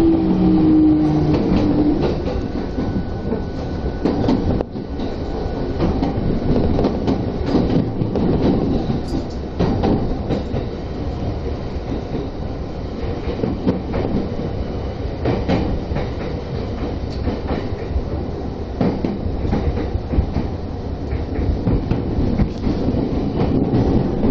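Tokyo Metro Tozai Line electric train heard from inside the carriage while running: a steady rumble of wheels on rail with scattered knocks from rail joints. A falling electric motor whine fades out in the first two seconds.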